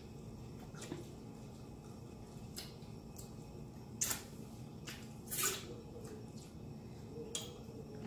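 Wet mouth smacks and finger-sucking clicks of people eating, a few scattered ones with the loudest about four seconds in and a longer one about five and a half seconds in.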